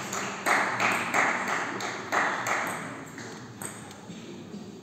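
Table tennis ball being struck back and forth in a rally, a handful of sharp clicks off bats and table with echo from the hall, ending about two and a half seconds in.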